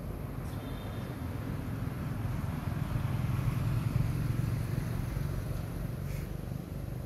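A motor vehicle passing: a low rumble that swells to its loudest about four seconds in, then fades away.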